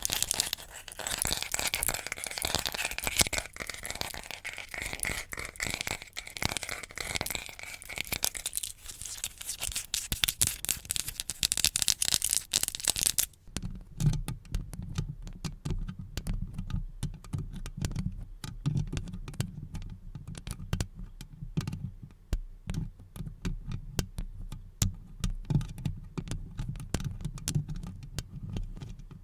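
Close-miked ASMR trigger sounds: dense crackling, scratching and crinkling for about the first thirteen seconds, then an abrupt switch to quick, light taps and clicks over a low rumble.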